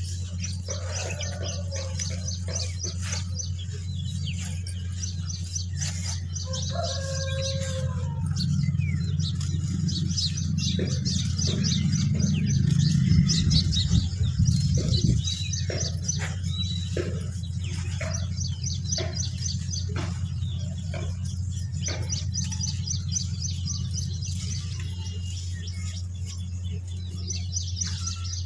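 Dry lumps of red dirt crumbling and crunching in the hands, with short cracks and grit falling, over birds chirping in quick repeated trains. A steady low hum runs underneath and swells into a louder rumble around the middle.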